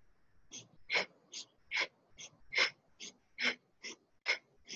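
Rapid, rhythmic yogic breathing: short sharp inhales and exhales, about two and a half breaths a second, alternating stronger and weaker, paced to fast arm movements up and down in a Kundalini yoga exercise.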